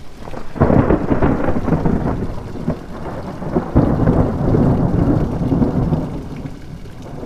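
Thunder breaking suddenly about half a second in and rumbling on, with a second loud crack near four seconds, then fading, over falling rain.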